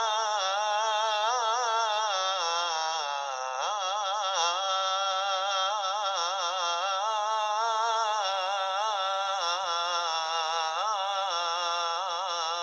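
A man's voice chanting the Islamic call to prayer (adhan), drawing out the line "Hayya 'ala l-falah" in long, ornamented melismas, the pitch wavering up and down without a break.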